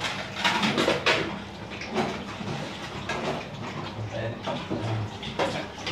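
Metal spoon knocking and scraping against a large aluminium cooking pot while stirring, in a run of quick clanks about a second in and single knocks after that.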